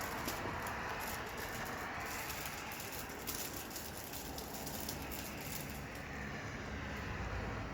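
Steady outdoor noise with a low rumble and scattered light crackles and ticks.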